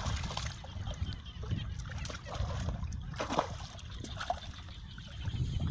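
Muddy water splashing as a bucket is tipped out into a shallow ditch, followed by scattered small splashes and drips from hands working in the water, with a steady low rumble underneath.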